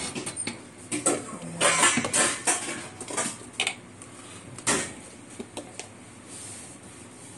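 Dishes and cutlery clinking and knocking as food is served, a run of short sharp clatters with most of them in the first five seconds, then quieter.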